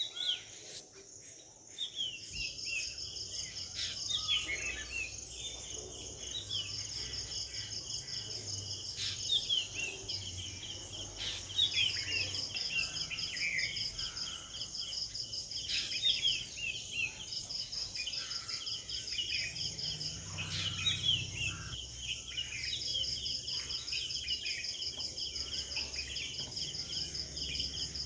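Outdoor nature ambience: insects trilling steadily at a high pitch, one trill coming and going in stretches of a few seconds, with birds chirping many short falling notes over it.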